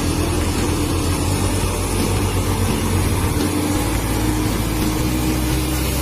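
Excavator's diesel engine running steadily, a constant hum over a low rumble.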